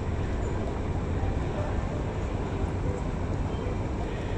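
Steady low rumble of harbour ambience, with no single event standing out.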